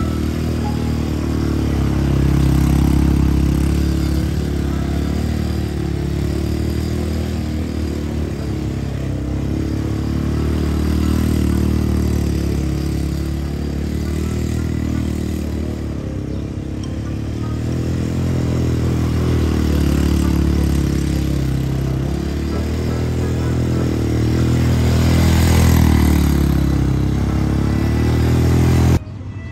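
Engine of a small youth quad bike running and revving as it circles on sand. It swells louder each time the bike comes close, about every eight seconds, and cuts off abruptly near the end.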